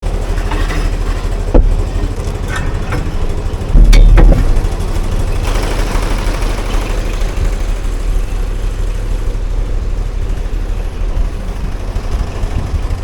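Tractor engine running steadily at a low drone, with a sharp knock about a second and a half in and a heavier thump about 4 seconds in.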